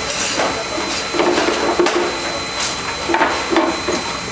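Steam hissing steadily from a miniature live-steam locomotive, with a few irregular metallic knocks and clicks.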